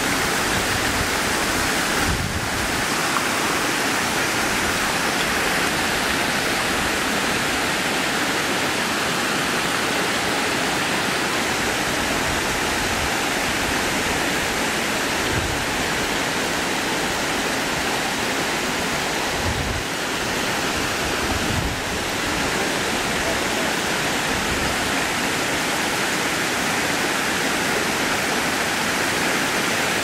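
Steady rushing of a small waterfall and the creek below it, water tumbling over rocks. A few faint low thumps sound through it.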